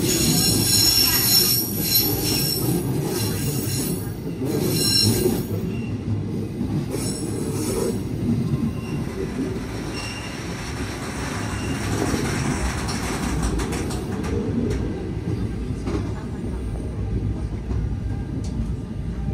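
Berner Oberland Bahn train running, its wheels squealing in high, shrill tones over the steady rumble of wheels on rails. The squeal fades about eight seconds in, and the rumble carries on.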